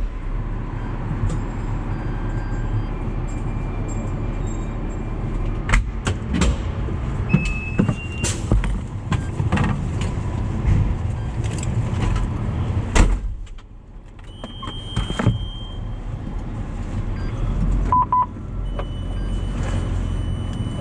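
Fire truck engine running steadily, heard from inside the cab, with several knocks and clunks. The loudest knock comes partway through, after which the rumble briefly drops. A few short electronic beeps sound over it.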